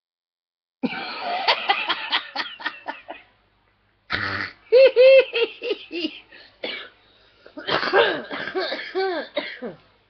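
A woman laughing helplessly in a fit of giggles, in three bouts: a run of breathy gasping bursts about a second in, then loud pitched peals of 'ha-ha' laughter in the middle and again near the end.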